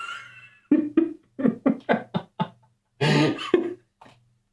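A man's voice making a quick run of short wordless syllables, then a louder, rougher vocal burst about three seconds in: mumbled noises of frustration while flubbing a narration line.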